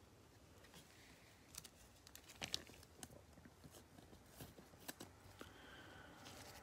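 Faint crinkling of a cellophane card-pack wrapper and clicking of glossy trading cards as they are handled and sorted, with a few sharp ticks, the loudest about two and a half seconds in.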